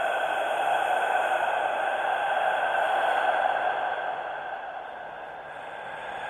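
Scary whisper sound effect: a long, breathy, drawn-out whisper without voiced pitch, easing down about four seconds in and swelling slightly again near the end.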